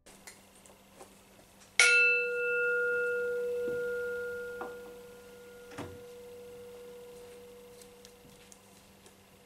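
Metal singing bowl struck once, about two seconds in, ringing with a low hum and higher overtones that fade slowly, the low tone lingering to the end. A few faint knocks follow.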